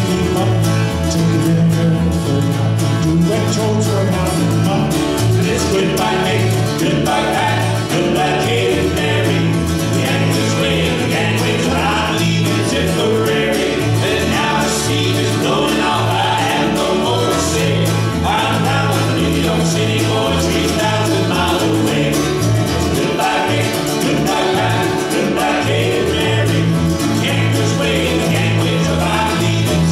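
Acoustic folk band playing a traditional Irish song: strummed acoustic guitars and a mandolin-type instrument over a bass playing a steady alternating bass line.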